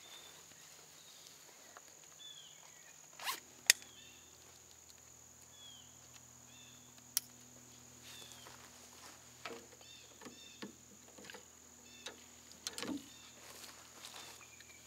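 Clicks, knocks and rustling of hunting gear being handled (harness straps, binoculars, and a compound bow lifted off a rack near the end), with two sharp clicks standing out. Behind it a bird gives short downward-slurred calls again and again over a steady high whine.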